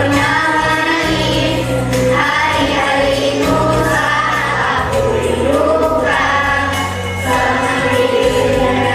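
A group of children singing a song together over a backing track, with sustained bass notes that change every second or two.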